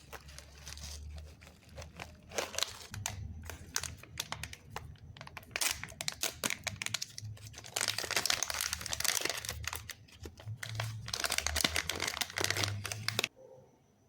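Plastic crinkling and rustling with many irregular clicks, as plastic packaging or computer parts are handled; it stops abruptly near the end.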